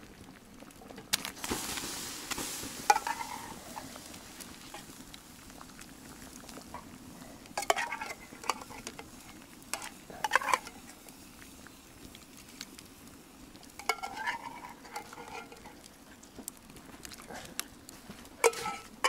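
A spoon scraping and clinking against metal every few seconds as canned stewed meat is emptied into a pot of soup. There is a hissing rush about a second in, over a steady low background.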